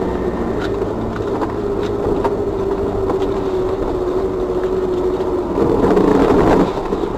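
Car driving on a snowy road, heard from inside the cabin through a dashcam: steady engine and road noise with a held hum and a few faint ticks. It grows a little louder for about a second near the end.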